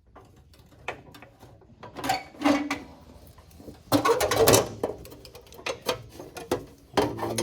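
Irregular clinks, taps and rattles of tools and small metal car parts being handled, with the loudest clatter about four seconds in.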